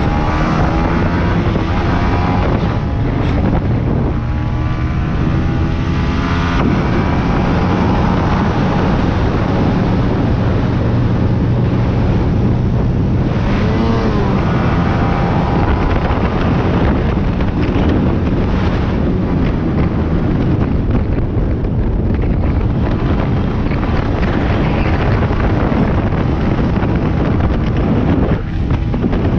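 Motorcycle riding at road speed: engine running steadily under heavy wind noise on the microphone, its pitch rising and falling a few times as the throttle changes.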